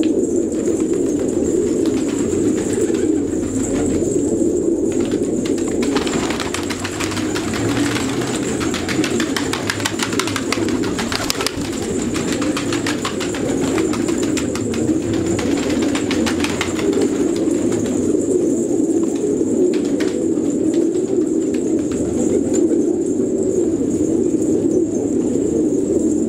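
A flock of fancy pigeons cooing continuously, many overlapping coos at once. From about six to seventeen seconds in, a run of rapid clicks and flutters joins the cooing.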